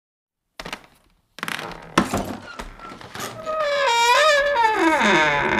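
Horror intro sound effects: a short thud, a sharp hit, then an eerie wavering wail that slides down in pitch, ending in a loud noisy rush with a low hum.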